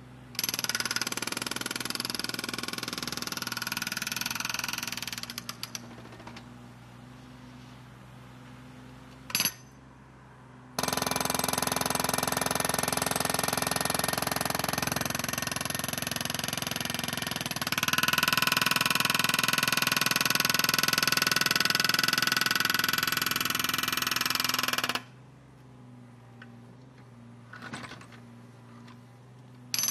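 Jackhammer breaking, in bursts of rapid blows: a run of about five seconds, a brief blip a few seconds later, then a long run of about fourteen seconds that grows louder partway through. Quieter background lies between the runs.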